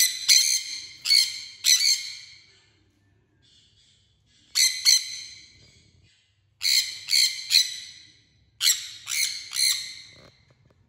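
Sun conures screeching: loud, harsh calls in four bursts of two to four calls each, with short pauses between.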